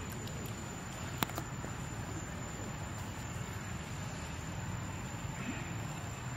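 Steady outdoor background noise with a low hum and a thin, steady high tone, broken once by a single sharp click about a second in.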